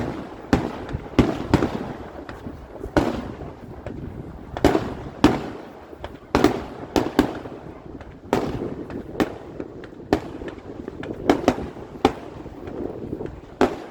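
Aerial fireworks bursting one after another: about twenty sharp bangs at irregular intervals, each followed by a short crackle and echo.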